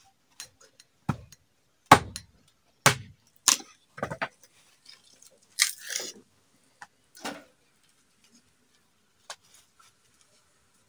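Dry firewood sticks being snapped by hand into shorter pieces: a string of sharp, irregular cracks, the loudest about two seconds in, with a last lone crack a little past nine seconds.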